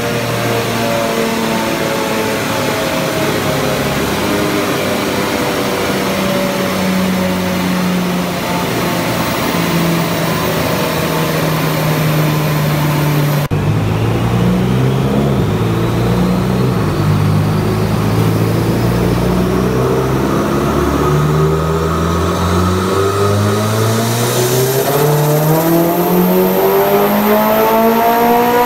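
Mitsubishi Lancer Evolution X's turbocharged 2.0-litre four-cylinder running under load on a chassis dyno. The engine note falls slowly for about the first half, changes abruptly about halfway, then climbs steadily in pitch as the engine revs up, peaking at the very end.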